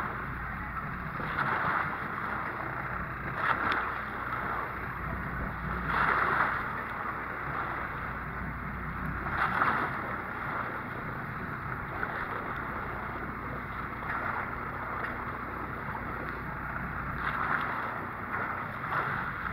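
Boat at sea: a steady low engine hum under wind on the microphone and water washing against the hull, swelling every few seconds.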